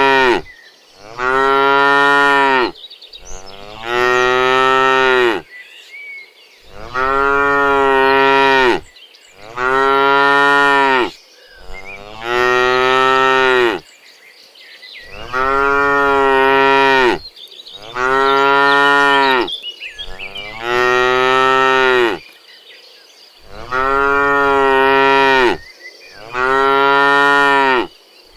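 Cows mooing over and over: long, loud moos, one about every two and a half to three seconds, each held for a second or two.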